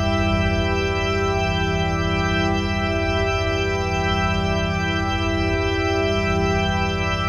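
Electronic organ sound effect holding one sustained chord without a break, with a fast pulsing throb in the bass notes.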